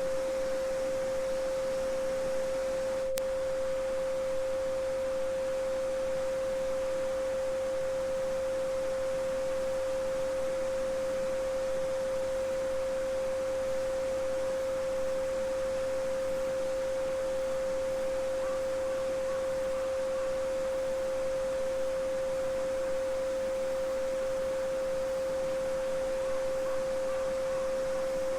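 Steady 528 Hz pure sine tone, the solfeggio frequency, held without a break over the faint, even babbling of a small stream. One faint click about three seconds in.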